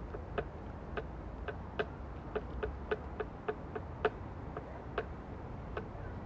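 Light clicking taps, about three a second and slightly uneven, each with a short ring, over a low rumble of city noise.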